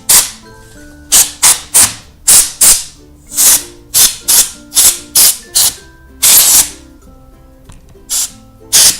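Compressed-air duster blasting dust out of an open laptop's fan and components: a rapid series of short sharp hisses, with one longer blast a bit past the middle and two more near the end. Faint background music runs underneath.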